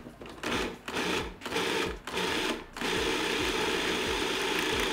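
Cuisinart food processor pulsed four times in short bursts, its blade chopping a thick, chunky tofu-and-cashew mixture. From about three seconds in it runs steadily.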